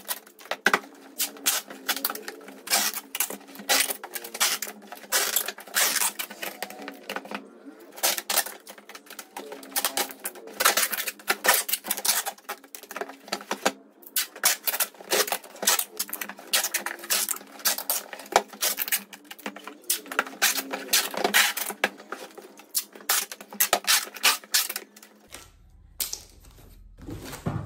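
Rapid, irregular clicking, tapping and rustling of cardboard packing being handled and fitted around a large aluminium steamer pot. Near the end it breaks off into a quieter low hum.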